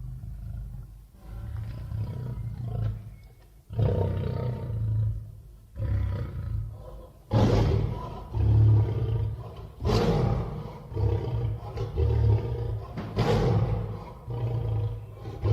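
Cave lion sound effect: a series of deep big-cat roars, about eight in a row, each starting suddenly, loudest in the middle of the run.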